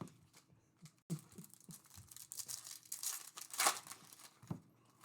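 Foil wrapper of a trading card pack crinkling and tearing as it is opened, with cards being handled: irregular crackles starting about a second in, loudest twice near the end.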